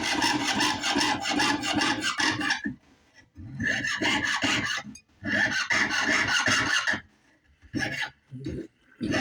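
Jeweler's saw cutting through sheet metal: quick back-and-forth rasping strokes in runs of a couple of seconds, with short pauses between runs.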